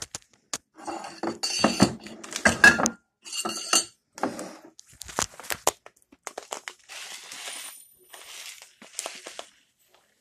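Dishes and a glass measuring cup clinking and clattering as they are handled on a kitchen counter, with sharp knocks in the first four seconds. Then come a few seconds of softer rustling from a plastic bag of long grain rice.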